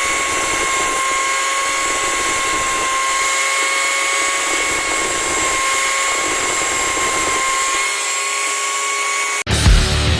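Small electric grinder running with a steady high-pitched whine over a hiss, as used to sharpen a chainsaw chain. It cuts off suddenly near the end, where loud heavy-rock music begins.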